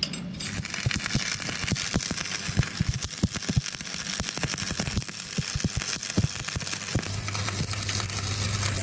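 Stick (shielded metal arc) welding electrode burning against a steel disc: a continuous arc crackle with many sharp pops. A low steady hum joins in near the end.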